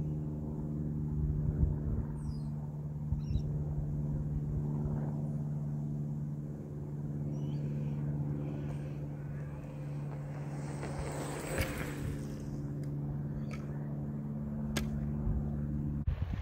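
Steady low hum holding one pitch, with wind rumbling on the microphone and a few faint chirps early on; it stops suddenly near the end.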